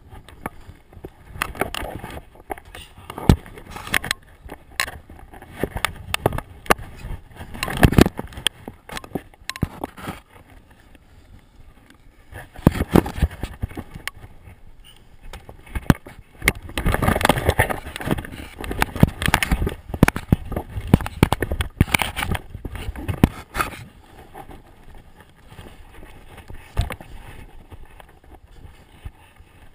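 Enduro dirt bike being worked down a steep rocky slope: irregular knocks, scrapes and crunching of stones and brush, with a louder stretch of scraping about halfway through.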